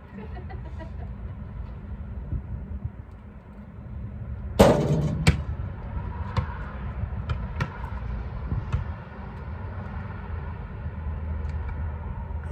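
A basketball striking the metal hoop with a loud clang about a third of the way in, then bouncing on asphalt a few more times, each fainter, over a steady low rumble.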